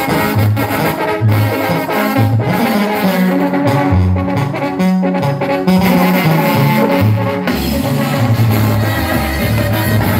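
A live brass band playing dance music: horns over a bouncing bass line that steps from note to note.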